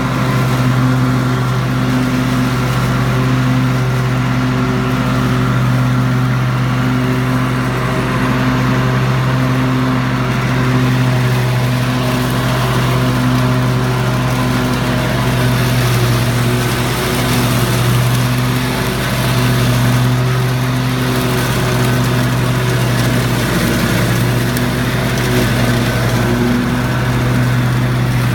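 Mower engine running steadily at a constant pitch while slashing long, overgrown grass.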